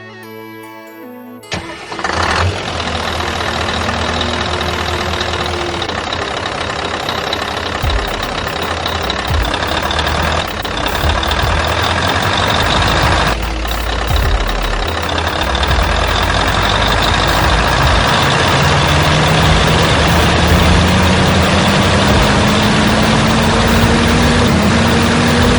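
A loud, steady engine-like noise starts suddenly about a second and a half in, its pitch rising slowly over the last several seconds.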